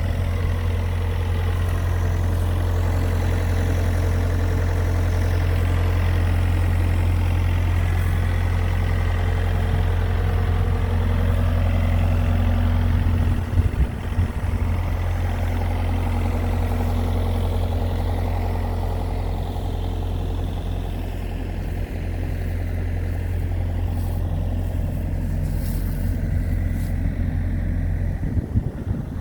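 Engine of a Hako Citytrac 4200 mowing tractor running steadily, a deep even hum, with a brief bump about halfway through.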